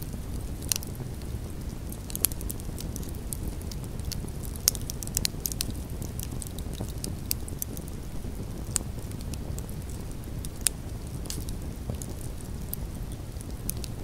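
Wood campfire burning: a steady low rush of flames with frequent sharp crackles and pops from the logs, a few of them louder.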